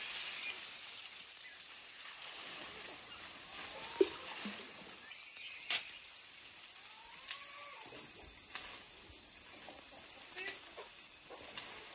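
Steady, high-pitched insect chorus of crickets or cicadas, with a few short chicken clucks and calls over it.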